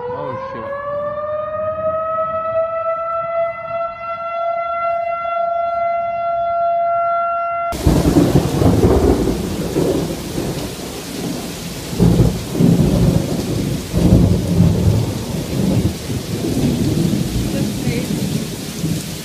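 An outdoor civil-defense warning siren winds up in a rising wail and then holds one steady pitch. About eight seconds in it cuts off abruptly to heavy rain and wind, with several loud rumbles of thunder.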